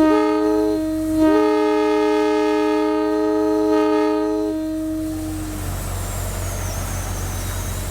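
WABCO AA-2 two-chime locomotive air horn blowing a chord. The higher chime breaks briefly about a second in, then sounds again with the lower one, and the lower chime trails off last as the air dies away.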